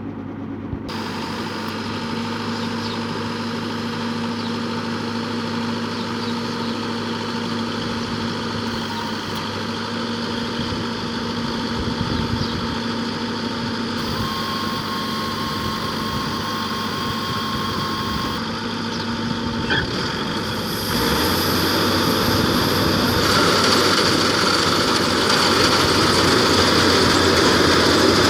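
World combine harvester's engine running steadily as it harvests rice, with a steady drone of machinery. It gets louder about three quarters of the way through.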